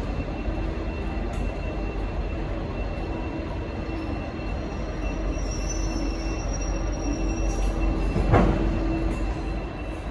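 Diesel locomotive running with a steady low rumble and hum under a station roof. A faint, thin high squeal sounds for a few seconds midway, and a single sharp knock comes about eight seconds in.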